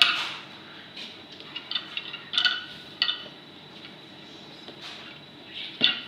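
Wooden beads on a wire bead-maze toy knocking and sliding: a few scattered light clicks and clacks over quiet room noise.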